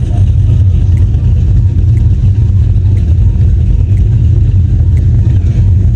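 Wind buffeting the microphone: a loud, steady low rumble, with a faint tick about once a second.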